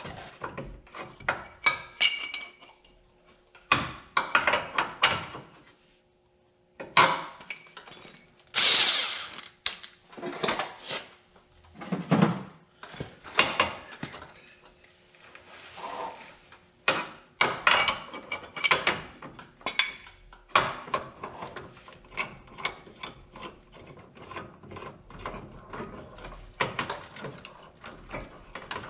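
Steel hand tools and ball joint press parts clinking, knocking and scraping in irregular clicks, as a new ball joint is worked straight in a steering knuckle and the press is fitted around it.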